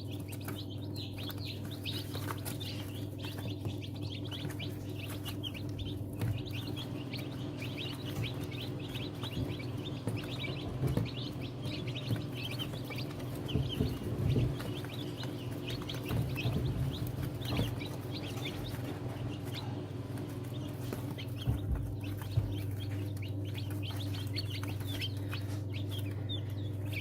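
Newly hatched chicken chicks peeping over and over inside an egg incubator, over the incubator's steady low hum. A few low thumps come through in the middle and later on.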